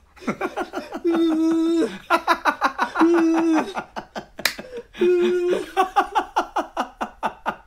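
Several people laughing hard in quick ha-ha pulses, broken by three long cries held at a steady pitch, with a single sharp click about halfway through.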